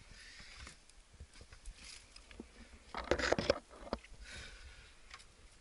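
Scattered scrapes and knocks of a climber's hands and boots on rock, with a louder burst of scraping about three seconds in.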